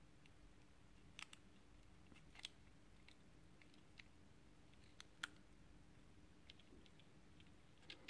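Faint, scattered metallic clicks from a stiletto switchblade's mechanism as the blade is folded shut by hand, with the sharpest clicks about two and a half and five seconds in and a small cluster near the end.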